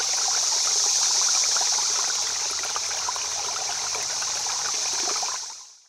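Running water: a steady rushing hiss with many small trickling ticks, fading out near the end.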